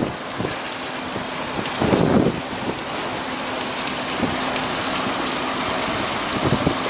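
Steady hiss of rain, with a faint steady low hum from the motor ship's engine and a few dull low thumps, the loudest about two seconds in.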